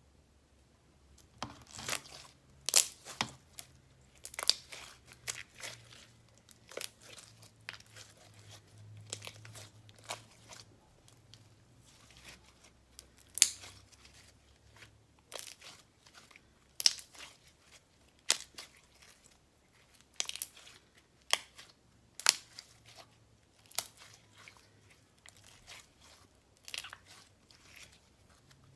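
Clear slime being squeezed and stretched by hand, giving off irregular sticky pops and crackles, one or two a second, some much sharper than others.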